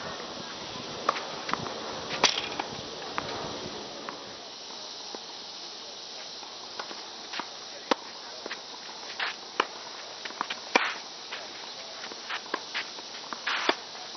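Tennis rally on a hard court: sharp pops of racket strikes and ball bounces at irregular intervals, with scuffing footwork, over a steady high hiss.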